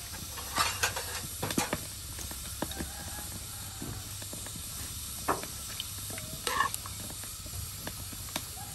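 Steady hiss of an aluminium pot of water and liver heating on the stove, with a few sharp clinks and taps as seasoning is spooned in and a metal spoon stirs the pot.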